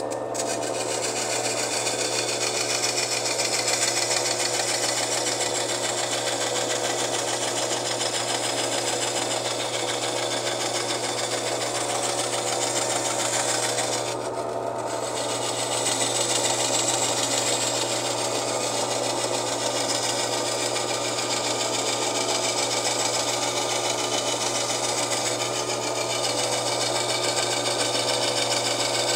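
Diamond Elite glass bandsaw running at full speed, its water-fed diamond blade grinding through a sheet of glass: a steady motor hum under a continuous gritty hiss, the high hiss briefly dropping out about halfway.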